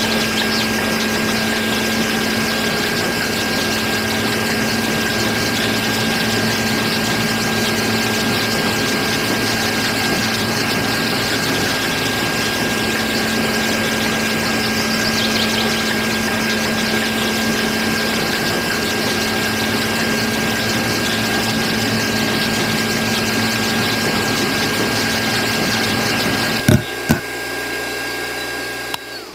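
Small electric motor running steadily, belt-driving a miniature grain mill as it grinds wheat, with a constant hum. Near the end two sharp clicks come and the running sound drops away as the motor is switched off.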